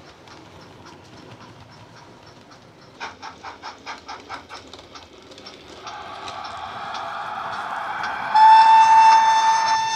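Bachmann OO gauge GWR Hall steam locomotive model playing its DCC sound through a megabass speaker: a quick rhythmic beat, about four a second, then a rising hiss as the loco comes closer. About eight seconds in it gives a loud, steady whistle on one high note.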